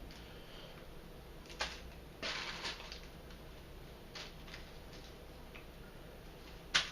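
Bagged plastic model-kit parts being handled: a few sharp light clicks and a short plastic crinkle about two seconds in.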